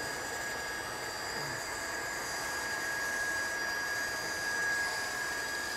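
Steady whirring of an electric blower, an even rushing noise with a constant high whine.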